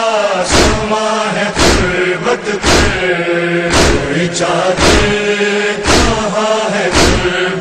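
Men's noha party chanting a lament in unison, with rhythmic chest-beating (matam): hand strikes on the chest about once a second, in time with the chant.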